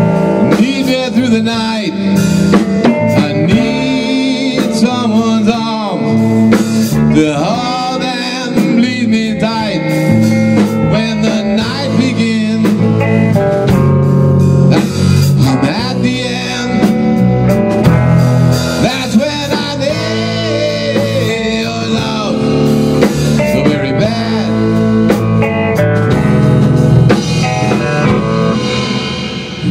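Live blues-rock band playing: drum kit and electric guitars, with a lead line of bending, wavering notes over the steady groove.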